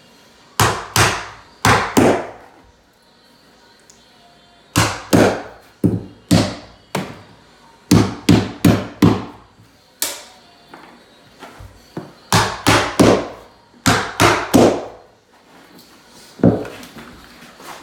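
Hammer driving the nails of carpet tack strip into an OSB subfloor: sharp blows a few a second in four quick runs with pauses between, and one more blow near the end.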